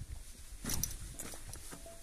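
Footsteps on loose rocks, with stones knocking and clacking together underfoot; the loudest cluster of knocks comes a little before a second in, with a few lighter ones after.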